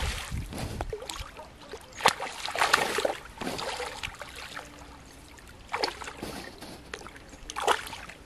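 A large hooked fish thrashing and splashing at the water's surface as it is played in on a rod, in irregular bursts of splashing with quieter sloshing of water between them.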